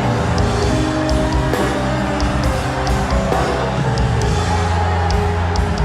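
Slow instrumental worship music: held chords over a low bass line, with a faint high tick marking the beat.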